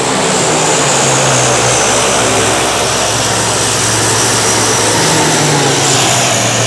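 Propeller aircraft flying past, its steady engine drone slowly falling in pitch as it goes by.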